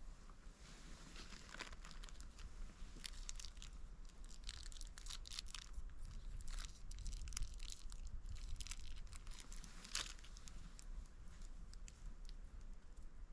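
Irregular rustling and crinkling, a run of small crackles from about a second in until near the end, with one sharper crackle about ten seconds in.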